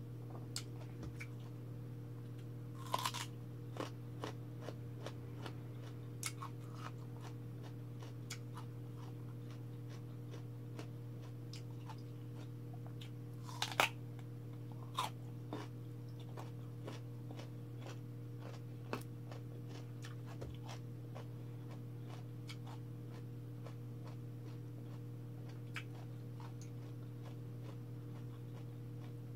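Close-up eating sounds: chewing with scattered sharp crunches and mouth clicks, the loudest crunch about halfway through, over a steady low hum.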